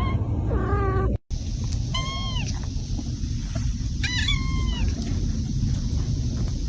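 Kitten mewing: three short, high-pitched mews, about half a second in, around two seconds and just after four seconds, over a steady low background noise, with a brief gap in the sound just after one second.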